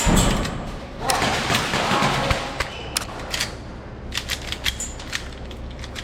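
Airsoft guns firing: a string of about eight sharp cracks at irregular spacing, starting about a second in, some in quick pairs.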